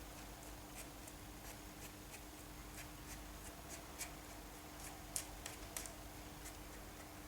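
Faint, irregular small clicks and light scratches of hands handling things, over a steady faint hum.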